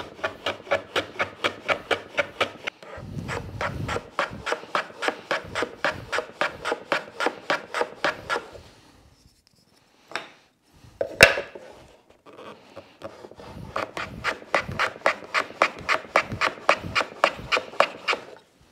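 Low angle jack plane slid back and forth on its side along a miter shooting board, shaving the end grain of walnut box miters in quick, even strokes, about three to four a second. Around the middle the strokes stop for a few seconds, with a single sharp knock, then start again.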